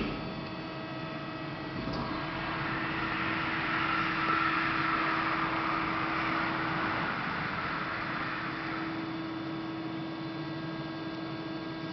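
LVD PPCB 150-ton CNC hydraulic press brake standing idle with its pump running, giving a steady hum. A softer rushing, whirring noise swells from about two seconds in and fades away near the end.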